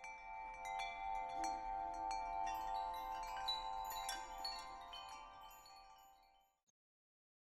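Wind-chime-like shimmer for an animated logo reveal: held bell-like tones under a scatter of high tinkling strikes. It swells in over the first second and fades away about six and a half seconds in.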